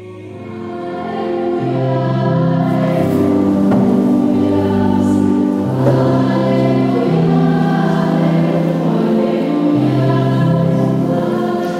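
Children's choir singing a slow hymn in held notes, swelling in over the first couple of seconds and then singing steadily.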